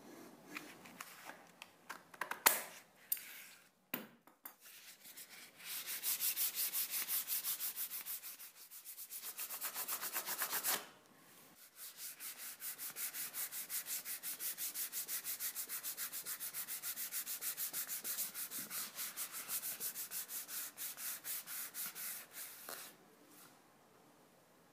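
Hand-sanding a walnut block: fast, even back-and-forth scratchy strokes in two long runs with a short pause between. Before it, a few clicks and a sharp knock as tools are handled.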